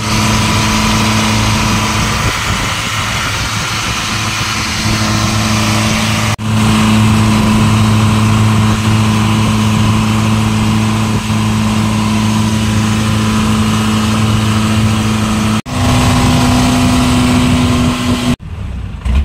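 Longtail boat's engine running steadily under way, a loud low drone with a hiss of wind and water over it. It breaks off briefly a few times, its pitch and loudness shifting slightly each time it comes back.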